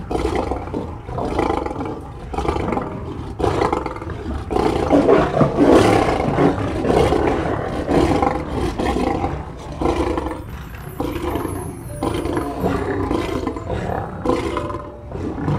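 Lion roaring: a long run of pulsing calls with hardly a break, loudest about five to six seconds in.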